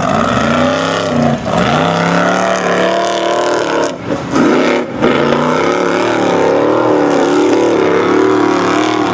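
Formula Offroad buggy engine revving hard under load on a steep sand hill climb, its pitch rising and falling again and again, with a couple of brief dips before it picks up again.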